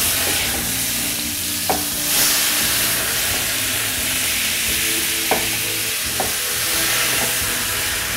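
Beef fillet frying in butter in a hot pan while poured cognac burns off in a flambé: a steady sizzle with a few sharp pops.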